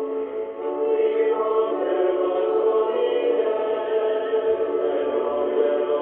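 A choir singing sustained notes, heard through an AM longwave radio receiver, so the sound is thin and cut off above about 4 kHz.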